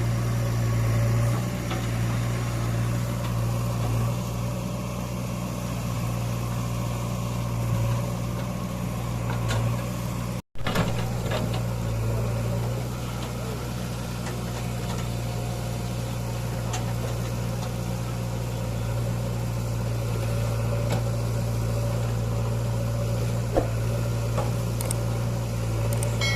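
JCB 3DX backhoe loader's diesel engine running steadily with a low, even hum. The sound drops out completely for an instant about ten seconds in.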